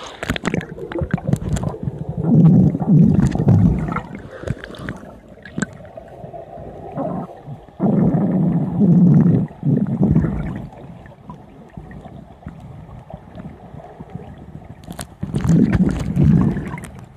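Exhaled bubbles from scuba divers' regulators, heard underwater: three bursts of low bubbling several seconds apart, with faint clicks and crackle between them.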